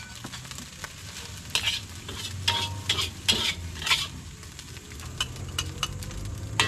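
Metal spatula scraping and clanking against a steel wok of frying nasi goreng, with the rice sizzling, as the fried rice is stirred and scooped out onto a plate. The scrapes come thickest in the middle of the stretch.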